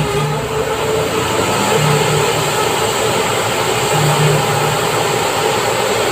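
Heavy construction machinery, such as an excavator or bulldozer, running steadily with its diesel engine under load. A low hum swells and fades about every two seconds.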